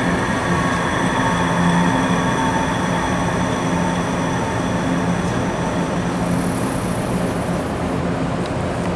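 Mitsui MSG-200MH surface grinder's spindle and wheel coasting down after the motor is switched off: a steady rumble with several faint tones, the higher ones fading out about six seconds in.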